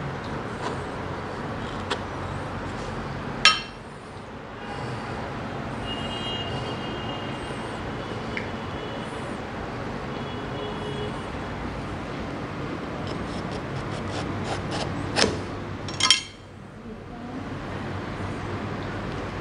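A durian being cut open and handled on a wooden table: a steady background hiss with a few sharp knocks. One knock comes about three seconds in and two come close together near the end, the last the loudest.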